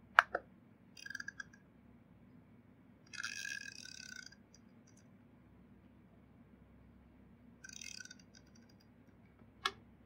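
A sharp double click just after the start, then the 0–99 rotary encoder dial of a prototype electronic combination lock is turned in three spells, its detents ticking rapidly, the longest spell about a second long. A single click comes near the end.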